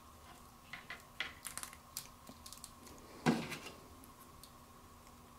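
Light clicks and taps of a small plastic action figure and its parts being handled on a tabletop, with one louder knock about three seconds in.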